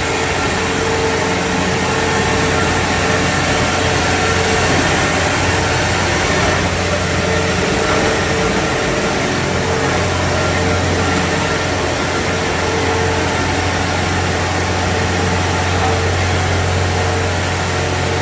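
Diesel engine of a Kubota DC70 combine harvester running steadily at a constant speed.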